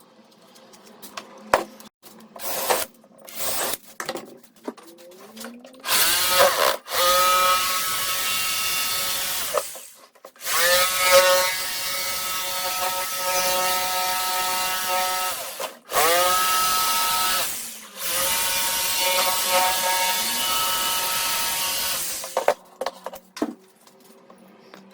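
Electric jigsaw cutting a quarter-inch MDF board, running in several stretches of a few seconds with short stops between them, the motor whining up to speed at each restart. A few knocks and handling sounds come before the first cut.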